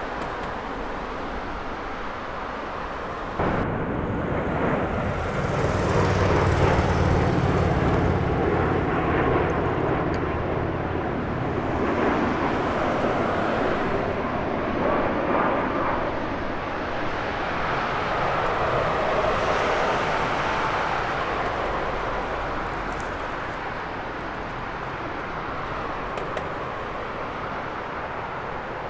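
McDonnell Douglas MD-11F freighter's jet engines as it passes, a heavy low rumble that comes in abruptly about three seconds in, builds, and then slowly fades away.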